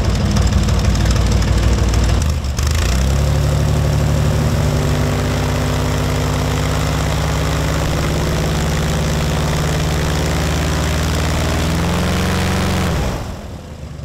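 Airboat engine and propeller running at high throttle, a loud rush of wind over a steady engine drone. It builds up about two to three seconds in, holds steady, and drops away just before the end as the throttle is cut.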